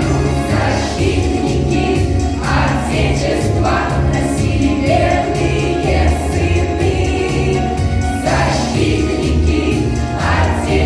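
Choir singing a song over an instrumental backing track with a steady, repeating bass line.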